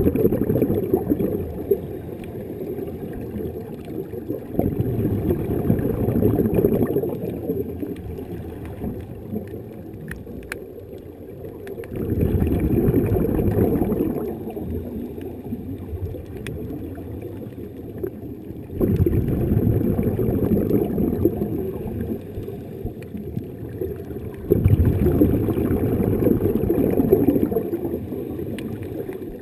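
Underwater breathing through a snuba diver's regulator. Exhaled air bubbles out in a low rumbling gurgle that swells every five to seven seconds and drops to a quieter wash between breaths. It is heard muffled through the GoPro's waterproof housing.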